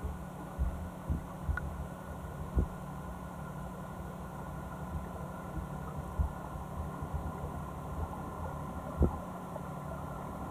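Muffled underwater sound picked up by an action camera: a steady low hum with irregular dull knocks, the loudest about two and a half and nine seconds in.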